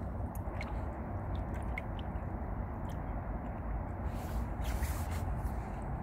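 Riverside water ambience: a steady low rumble of river water and air with soft wet lapping, and a few faint short high chirps.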